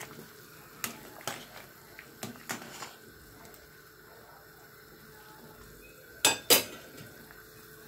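A metal slotted spoon clinking against a stainless steel stockpot and a ceramic plate: a few light clinks in the first three seconds, then two sharp, louder clinks in quick succession about six and a half seconds in.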